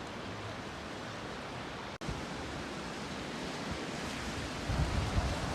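Steady wash of sea surf at the shore. Low gusts of wind buffet the microphone near the end.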